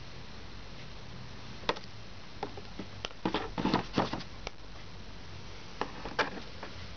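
A series of light, sharp clicks and knocks of small hard objects being handled, bunched together about three to four and a half seconds in, over a low steady hum.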